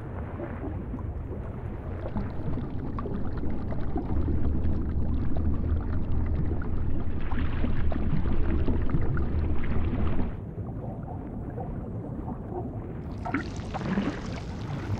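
Low, rumbling underwater ambience with watery noise that swells over the first ten seconds, drops away suddenly, then returns as a brighter rushing hiss near the end.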